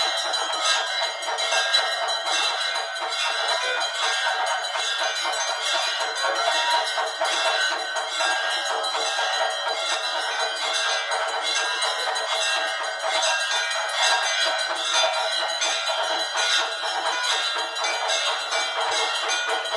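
Temple bells rung without pause for an aarti, a dense mass of overlapping metallic ringing tones struck rapidly and steadily.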